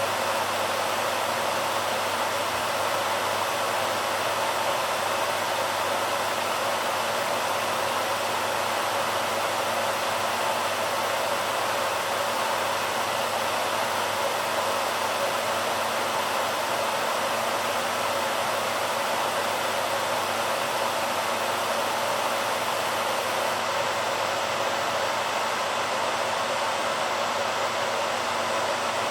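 BaByliss hairdryer running continuously: an even, unchanging rush of fan and blown air with a faint steady tone running through it.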